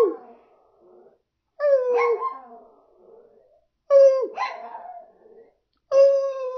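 A man and a dog trading drawn-out 'woo' calls: four calls about two seconds apart, each a held note that drops sharply in pitch at its end, with a second voice joining just after each one begins.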